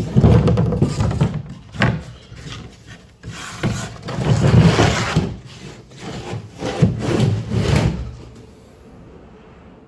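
Wood scraping and rubbing in several uneven strokes as plywood pieces are worked against each other. It stops about eight seconds in.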